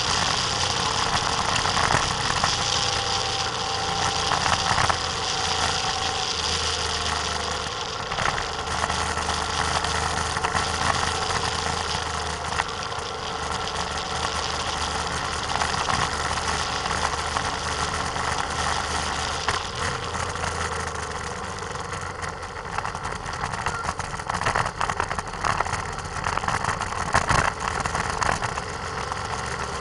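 A vehicle's engine running as it drives along, with heavy wind and road noise on a camera mounted on the vehicle. A stretch of jolting rattles comes near the end.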